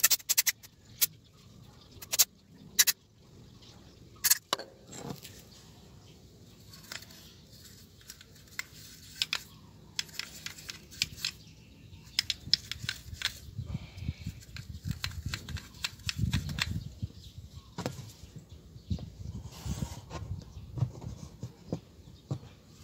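Short hissing bursts of aerosol cleaner sprayed through a straw onto a motorcycle throttle body, several quick bursts in the first few seconds, followed by quieter clicks and knocks of the part being handled and turned over.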